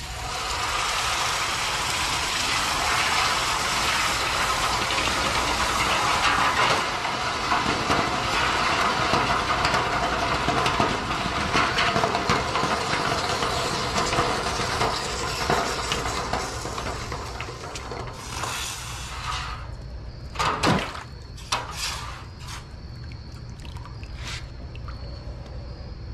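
Hot freshly cast copper ingot quenched in a stainless steel pan of water: a loud boiling hiss that starts as it goes in and dies away after about 18 seconds. A few sharp knocks and splashes follow near the end as the ingot is handled in the pan with tongs.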